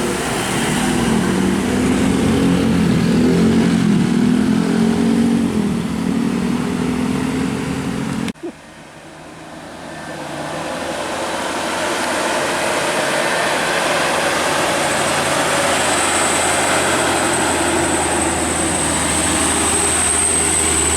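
Road traffic: a heavy vehicle's engine running with a wavering pitch. It cuts off abruptly about eight seconds in, and traffic noise then swells and holds steady, with a thin high whine joining over the last few seconds.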